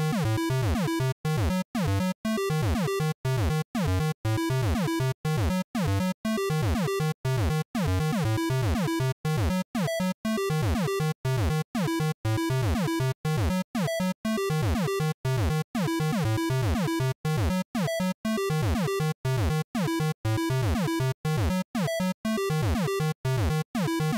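PC-speaker-style chiptune made in BeepBox: buzzy square-wave tones with fast falling pitch sweeps, chopped by short gaps of silence about twice a second in a steady beat.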